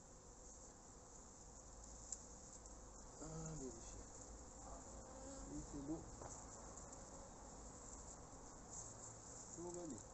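Honeybees buzzing faintly around an open hive, with single bees flying close past now and then: louder, rising-and-falling buzzes about three seconds in, around six seconds, and near the end.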